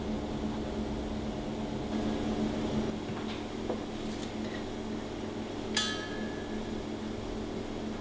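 Steady machine hum of kitchen ventilation, with a few light taps of a knife and utensils. About six seconds in comes one short metallic clink that rings briefly.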